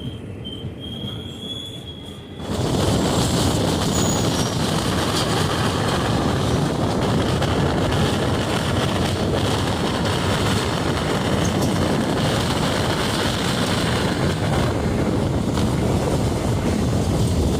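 Indian Railways electric-locomotive train running past close by: a thin high whine at first, then about two and a half seconds in the loud, steady rumble and rush of the passing train sets in and holds.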